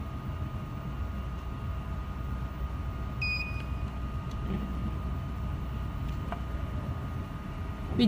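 A handheld addressable-device programmer gives a single short electronic beep about three seconds in as it powers on. Behind it runs a steady low background hum.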